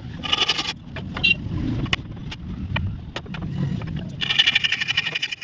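A power tool runs in two short bursts, one at the start and a longer one near the end, with knocks and a low rumble between them.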